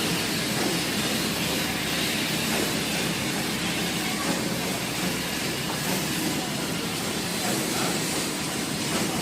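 Darjeeling Himalayan Railway narrow-gauge toy train running, a steady rumbling noise with a hiss.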